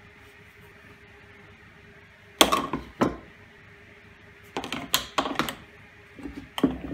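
Plastic pipes and an MDF disc handled and set down on a wooden workbench: a loud hollow knock about two and a half seconds in, a second half a second later, then runs of lighter clacks and knocks.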